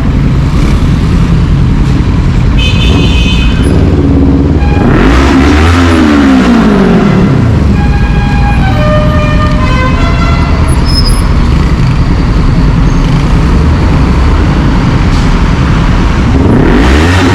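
Motor vehicle engine running over a steady rumble of traffic. It revs up and falls back about five seconds in, and starts to rise again near the end, with a short horn toot a few seconds in.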